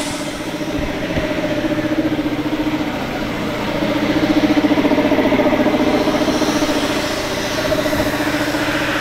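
A small engine running steadily at an even pitch, getting a little louder a few seconds in.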